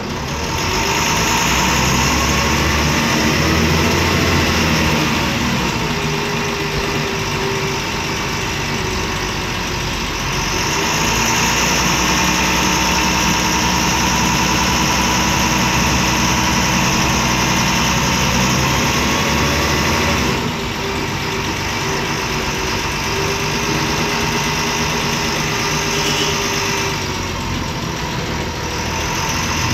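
Inside a MAN Lion's Classic bus, its MAN D0826LOH six-cylinder turbodiesel runs under way, a noisy engine. It grows louder twice and eases off again, with a whine that slides in pitch and then holds.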